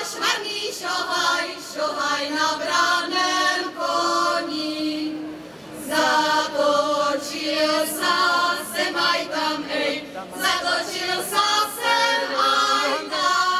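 Women's folk choir singing a folk song together, unaccompanied, in long phrases with a short breath pause about five seconds in and again near ten seconds.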